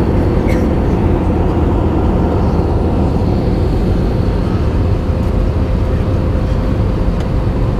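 Steady cabin drone inside an Airbus A320 airliner, with a faint steady whine on top and a few light clicks.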